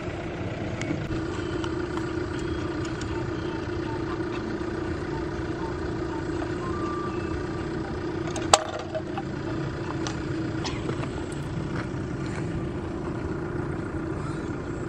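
A steady low hum, like an idling engine, with a few light clicks and one sharp metallic click about eight and a half seconds in.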